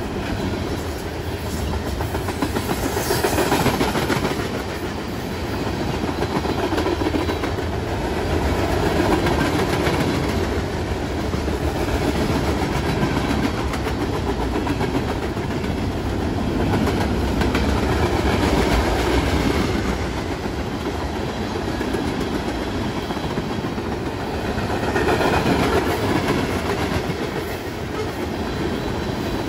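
Freight cars rolling past close by: steady rumble and clatter of steel wheels on the rails, with clicks over the rail joints, swelling and easing every few seconds as the cars go by.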